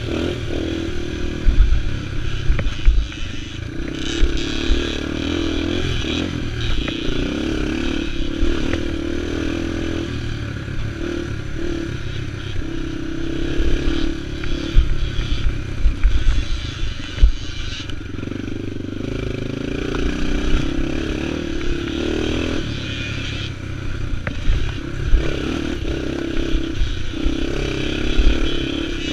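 Yamaha TT-R230's single-cylinder four-stroke engine running under throttle, its note rising and falling with throttle and gear changes, with knocks and rattles from the bike over the bumpy dirt trail.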